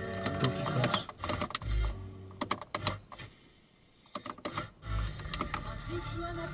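Car FM radio tuned to a weak, distant station: the broadcast music breaks up into rapid crackling clicks. The signal drops out for about a second midway, then the music comes back.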